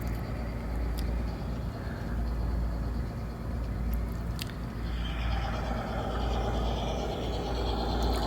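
G-scale garden railroad train running past, a steady low rumble with a few sharp clicks. The sound grows fuller from about five seconds in.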